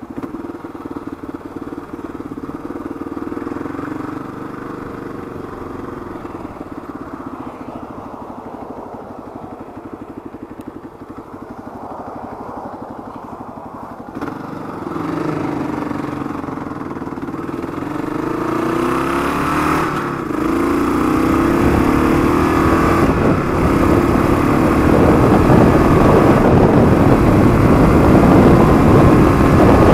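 Gen 1 Kawasaki KLR 650 single-cylinder engine through a Supertrapp exhaust, running gently at low speed at first. About halfway in it pulls hard, shifting up through the gears and growing steadily louder as it gets up to highway speed.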